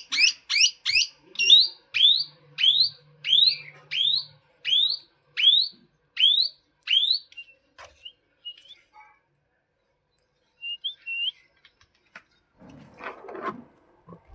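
Plum-headed parakeet calling: a rapid series of short, shrill, rising whistles, about one to two a second, that stops about halfway through. A few soft chirps follow, then a brief scratchy rustle near the end.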